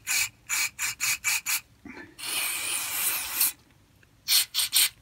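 Aerosol carburettor cleaner hissing through a straw into the jets and passages of an LHP16 mower carburettor: about six quick bursts, then one longer spray of over a second, a short pause, and three more quick bursts near the end. The spray is being forced through the passages to check they are clear.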